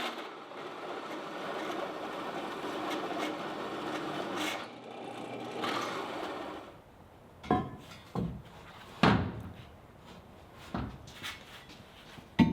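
Drill running as it bores and countersinks screw holes in steel angle, a steady grinding that dips briefly and stops about seven seconds in. After that come several separate sharp knocks.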